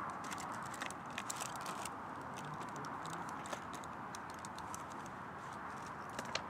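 Steady distant motorway traffic hum with some wind, and small clicks and rustles of objects and clothing being handled close by, most of them in the first two seconds and one sharper click near the end.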